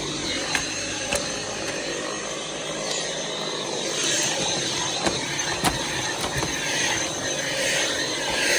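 Dyson V7 cordless stick vacuum running steadily, with a high whine over the rush of air and a few brief clicks.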